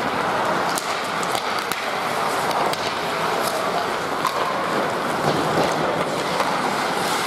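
Ice hockey play: a steady wash of skates scraping on the ice, broken by scattered sharp clicks of sticks on the puck.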